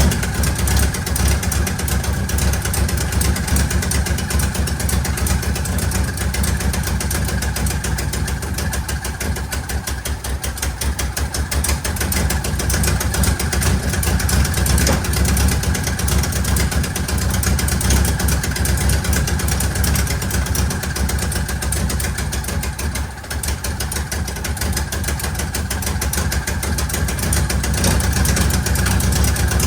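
A car engine running steadily, a continuous low rumble with no change in pace.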